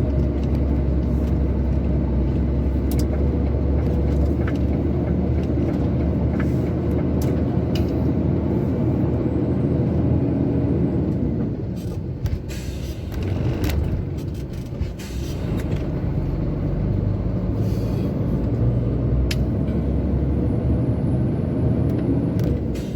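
Inside a truck's cab on the move: the heavy truck's engine drones steadily over road rumble, getting quieter for a few seconds around the middle before building again.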